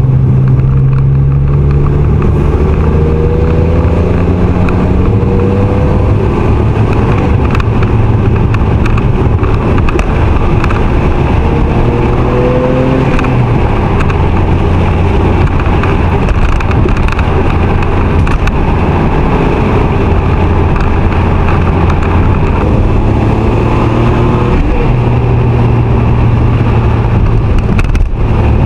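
Kei car engine and its newly fitted aftermarket rear muffler heard from inside the cabin while driving. The exhaust note rises in pitch as the car accelerates, drops back about thirteen seconds in, holds steady while cruising, then climbs again near the end.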